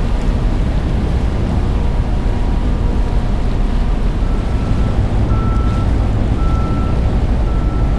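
Steady low rumble of a tug running close alongside a container ship's hull, with water rushing and wind buffeting the microphone. From about halfway through, a faint high beep repeats roughly once a second.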